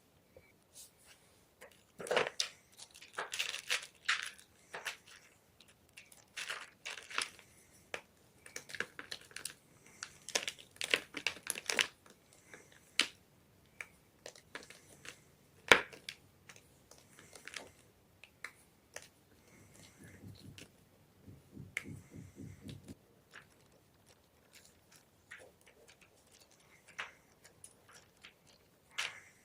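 Gym chalk being crushed and crunched, an irregular run of crisp crackles and snaps, busiest in the first twelve seconds and sparser after, with one sharp snap about sixteen seconds in.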